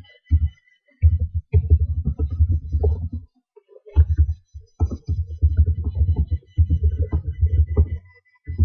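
Typing on a computer keyboard: fast runs of dull, low keystroke thumps with short pauses between words.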